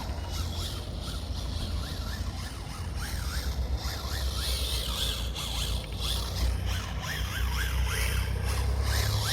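A radio-controlled car's motor whining up and down in pitch in quick bursts of throttle as it is driven, with a hiss of tyres on the ground. A steady low rumble runs underneath.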